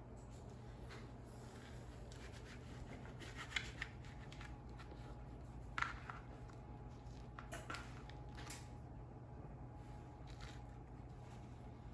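Faint, scattered scrapes and soft clicks of a flour tortilla being cut into strips and handled, a handful of short sounds over a steady low hum.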